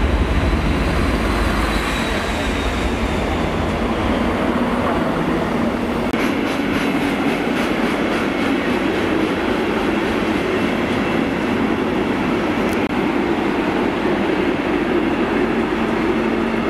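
Train passing close alongside the platform with a deep rumble, then a steady rolling rumble and clatter of train wheels on the rails. A steady engine hum builds near the end.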